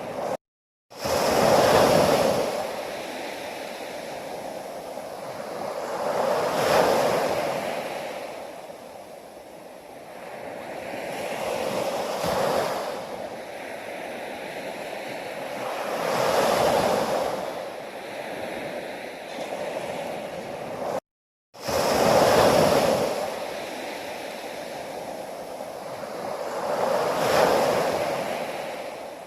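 Ocean waves breaking and washing up on a shore, the surf swelling and fading about every five seconds. The sound drops out to silence briefly twice, near the start and about two-thirds of the way through.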